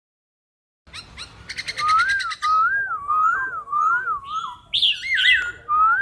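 Caged black-throated laughingthrush singing: starting about a second in, a quick rattle of repeated notes, then a run of clear whistled notes that rise and fall, about two a second, broken by a few higher, harsher calls.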